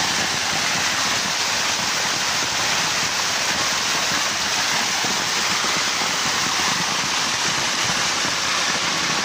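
Heavy rain downpour: a steady hiss of rain falling on a flooded concrete yard, mixed with runoff pouring down a stone wall.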